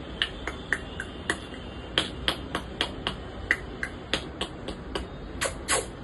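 African grey parrot making a run of sharp tongue clicks, about three a second with a short pause, the last two ending in quick falling chirps.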